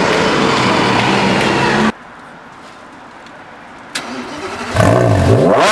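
A supercar engine running steadily cuts off abruptly to a quiet background. A click follows about four seconds in, then near the end an engine fires up with a sharp rising rev.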